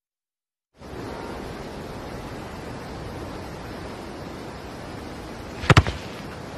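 After a moment of silence, steady wind noise on the microphone on an open pitch. About five seconds in a soccer ball is struck hard with a sharp double thump, as two players kick it together in a twin shot.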